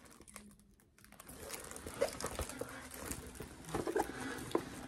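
Plastic-covered diamond painting canvas being handled and rolled: soft, irregular crinkling and rustling that starts about a second and a half in.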